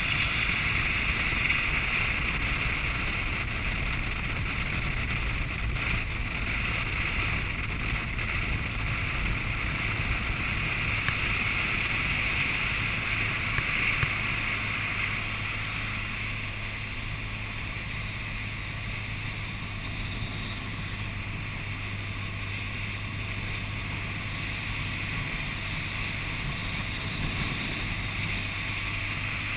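Wind rush over the camera with a BMW R1200GS Adventure's boxer-twin engine running at a steady cruise, easing off a little about halfway through.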